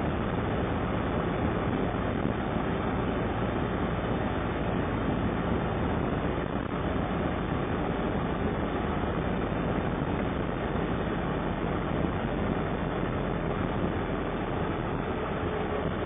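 Steady engine and road noise heard inside the cab of an ambulance driving along snow-covered streets.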